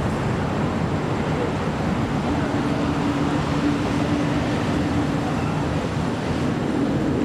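Steady low rumbling outdoor noise, with a faint steady hum coming in about two seconds in.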